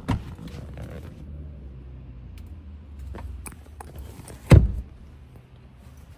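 Knocks and bumps inside a pickup truck's cab: a sharp knock right at the start, a few light clicks, and one loud thump about four and a half seconds in, over a low steady rumble that fades after the thump.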